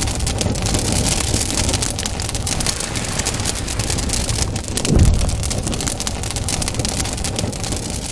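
Intro sound effect of a fire crackling and rushing, with a low boom about five seconds in.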